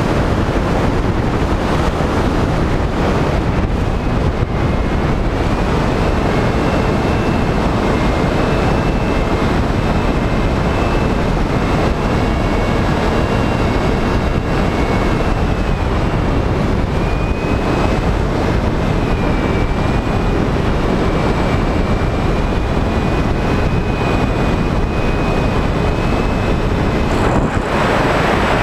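Airflow rushing over the microphone of a Skywalker FPV plane's onboard camera in flight, with the thin, high whine of its electric motor and propeller wavering slightly in pitch through most of the stretch.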